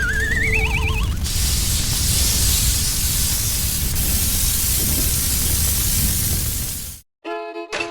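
A wobbling whistle sound effect rising in pitch for about a second, then a steady loud hiss with a low rumble beneath it that cuts off suddenly near the end.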